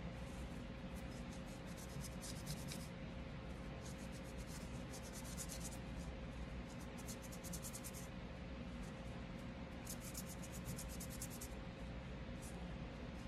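Microfiber cloth rubbed quickly back and forth over the polymer frame of a field-stripped Smith & Wesson M&P Shield Plus 9mm pistol during cleaning. The scrubbing comes in several short bursts of rapid, even strokes with brief pauses between them.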